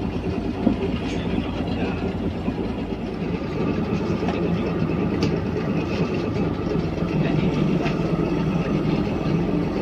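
Fishing boat's engine running steadily, a dense low drone with a few faint knocks over it.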